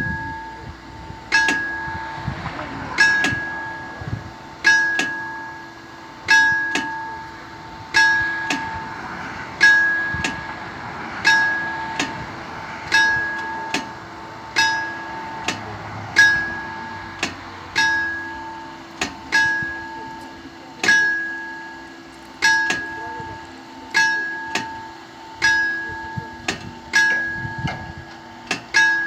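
Italian railway level-crossing warning bell (Fs64-type bell box) striking slowly and evenly, about one ringing strike every second and a half, each strike dying away before the next. It is the crossing's warning that it is closing, with the barriers coming down.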